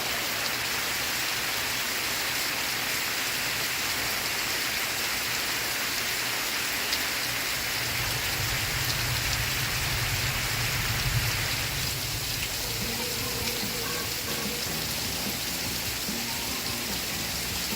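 Steady rain hiss, with a low rumble lasting a few seconds near the middle and faint music coming in underneath in the second half.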